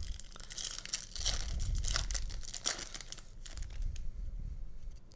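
Foil wrapper of a Yu-Gi-Oh booster pack being torn open and crinkled: a dense crackle of tearing foil for about three seconds, then quieter rustling as the cards come out.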